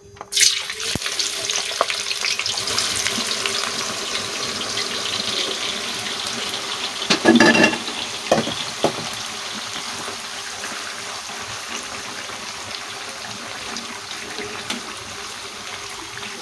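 Sliced onions hitting hot oil in a steel karahi: a sudden loud sizzle about half a second in that settles into steady deep-frying and slowly eases off. A steel slotted spatula knocks and scrapes against the pan a few times around seven to nine seconds in.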